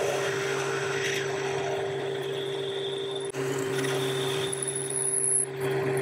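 Boxford metal lathe running steadily while a 6.7 mm twist drill bores the tapping hole for an M8 thread into a spinning aluminium bar. A brief high whine comes from the cut near the end.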